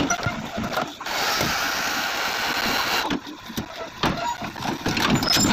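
Excavator working during unloading from a truck: irregular metal clanks and knocks, with a steady hiss lasting about two seconds in the middle.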